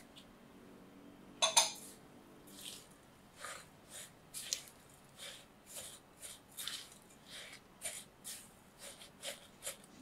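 A spoon stirring crushed biscuit crumbs with chocolate condensed milk in a glass bowl: a sharp knock about one and a half seconds in, then repeated gritty scraping strokes, about two a second.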